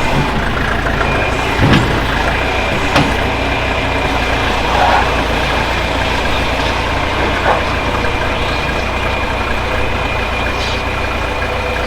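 Backhoe engine running steadily, with a thin steady whine above it and a few short knocks spread through.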